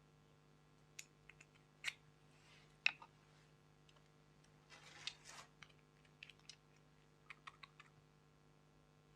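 Slime being handled by hand, giving faint scattered sticky clicks and pops, with a short squishy smear of sound about five seconds in and quick little runs of clicks after it.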